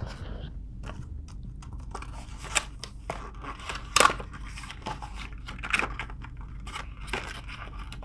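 Handling noise from small computer parts: scattered light clicks, taps and scraping, with a sharp click about four seconds in.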